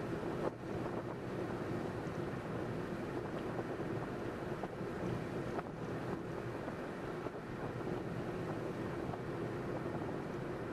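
Steady road and wind noise of a car driving along a highway, with a low hum running under it.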